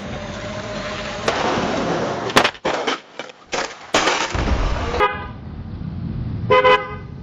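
Car crash sound effect: a rising rush of engine and tyre noise, then a quick series of sharp crashing impacts about two seconds in. A car horn follows, faintly once and then in a loud short blast near the end.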